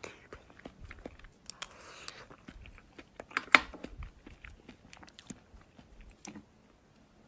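Slime being squished and pressed: a run of sharp clicks and crackles, with one louder crack about three and a half seconds in.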